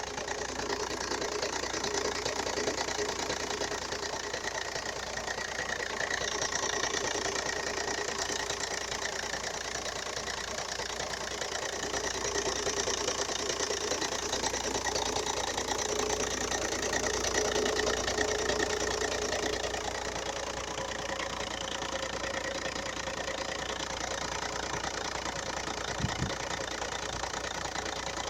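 2.0 TDI four-cylinder diesel engine running with a knock from a failing dual-mass flywheel, which makes the engine sound and shake as if it were misfiring. One brief low thump about 26 seconds in.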